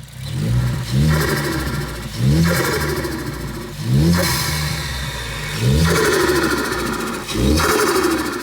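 Ford Focus ST's turbocharged 2.0-litre EcoBoost four-cylinder revved in five quick blips to about 2500 RPM. Each blip is followed by a rapid fluttering chatter from the turbo as the throttle closes, with the bypass valve still fitted and only an aftermarket intake added.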